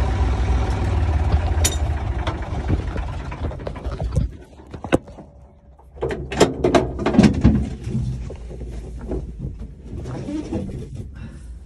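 Tractor engine running steadily, then cutting out about four seconds in. After a short quiet, a burst of knocks and rattles follows as the cab door is handled and someone climbs out.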